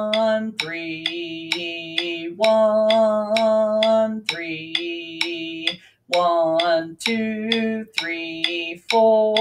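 Play-along practice track: long held instrument notes that change pitch every one to two seconds, with short gaps between them, over a metronome click about twice a second.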